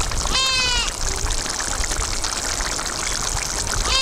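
A goat bleating twice, a short call just after the start and another at the end, over a steady hiss.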